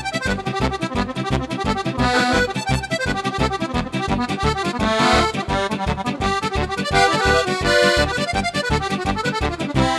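Steirische Harmonika (Styrian diatonic button accordion) played through a MIDI sound expander: a lively, fast tune over a steady bass beat of about four notes a second.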